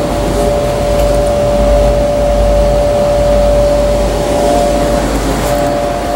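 Steady mechanical droning hum, two even tones over a low rumble, with no break.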